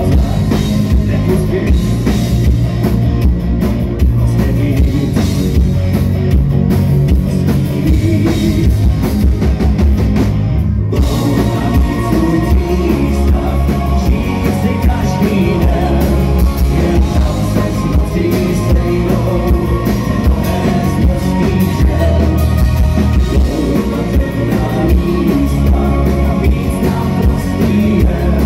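Live rock band playing loud through the PA: drum kit, bass guitar and keyboards, with a lead vocalist singing into a handheld microphone.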